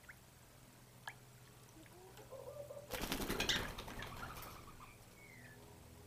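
A parrot bathing in a shallow bird bath: a burst of splashing and wing-flapping in the water, lasting about a second and a half from about halfway through.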